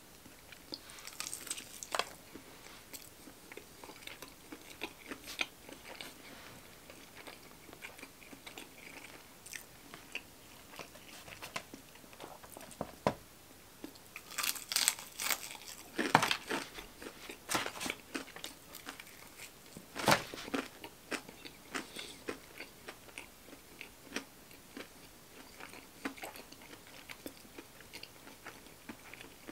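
Close-miked eating: bites into breaded fried chicken fingers, crunching and chewing, in scattered bursts of crackly clicks. The loudest crunches come about halfway through and again a few seconds later.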